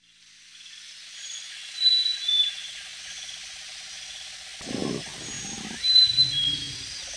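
Jungle ambience fading in: a steady high insect-like hiss with scattered bird chirps, and a deeper animal call from about halfway through.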